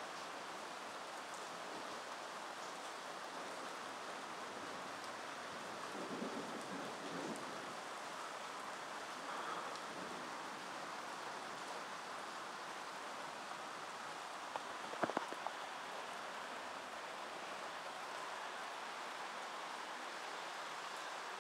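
Steady hiss of rain falling during a thunderstorm, with no thunder heard. A few sharp clicks come about fifteen seconds in.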